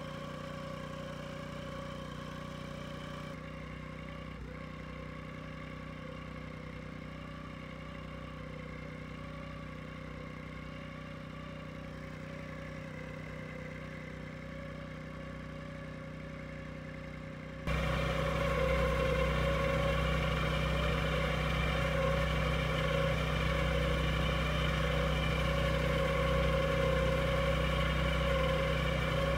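Small boat motor driving a mini houseboat at a steady cruising speed, a constant hum that does not change in pitch. About two-thirds of the way in it becomes abruptly louder and stays louder.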